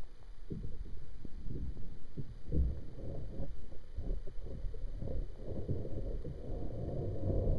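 Muffled underwater rumble with irregular soft low knocks, the handling and water-movement noise of a camera being moved through water. The rumble grows fuller over the last couple of seconds.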